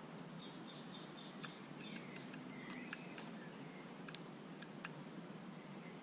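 Great spotted woodpecker pecking at peanuts through a wire mesh feeder: a handful of sharp, irregular taps of beak on wire. Small birds sing faintly behind it, with a quick run of high notes about half a second in and a few whistled notes in the middle.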